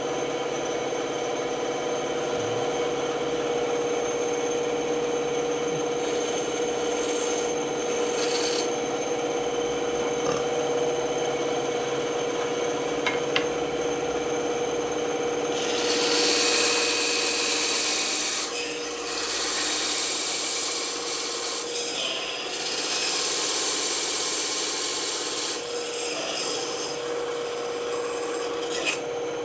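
Band saw running with a steady hum while its blade cuts through wood. The hiss of the cut comes and goes in passes: faintly early on, then loudest in three stretches past the middle.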